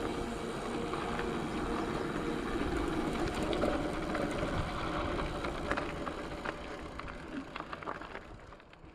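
Steady vehicle noise with a low hum and scattered light clicks, fading away near the end.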